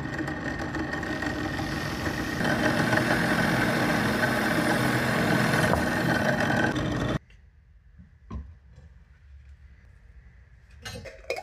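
Bench drill press motor running steadily while its Forstner bit bores through a slice of bread; it gets a little louder about two seconds in and stops suddenly about seven seconds in. A few faint knocks and clicks follow.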